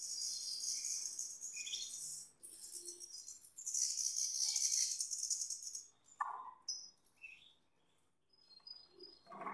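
Gloster canaries flapping their wings in a wire cage: two stretches of rapid fluttering, each about two seconds long, the second beginning a little before the four-second mark. After that come a few short chirps and calls.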